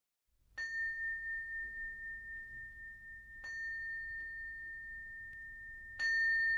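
A high, bell-like chime struck three times, about two and a half seconds apart, each note ringing on steadily, with a faint lower tone underneath.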